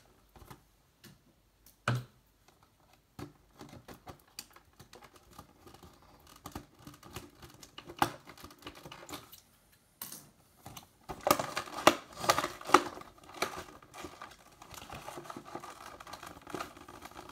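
Toy packaging being cut open and handled: scattered clicks, taps and scrapes, sparse at first and much busier about two-thirds of the way through.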